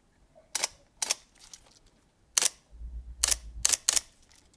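Sony A7 III mirrorless camera firing its shutter about six times, single sharp clicks, with a low buzz between the last few clicks. The buzz is the camera's abnormal noise and body vibration, traced to the image sensor's cracked mounting corner and loosened screws, which let the sensor and stabiliser unit rattle.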